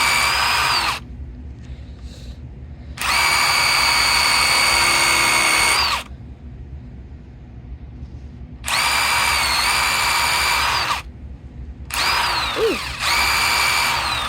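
Power drill spinning steel wool inside a socket to polish it, run in four bursts with a steady high whine, each burst ending as the motor spins down with a falling pitch.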